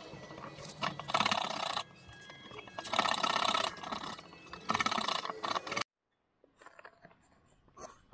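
Narrow hand blade scraping out a saw notch in a wooden block, in three scraping strokes about a second each with light clicks between. The sound cuts off suddenly about six seconds in, leaving near silence with a few faint clicks.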